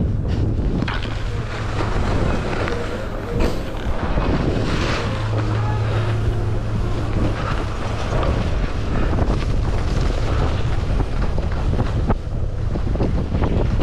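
Wind rushing over the microphone of a skier moving downhill, mixed with the scrape of skis on groomed snow.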